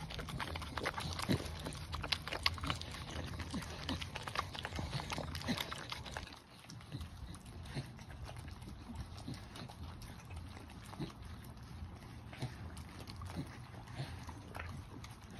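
Staffordshire bull terriers licking raw food out of rubber lick mats: quick, irregular wet tongue smacks and laps. They are louder for the first six seconds or so, then fainter.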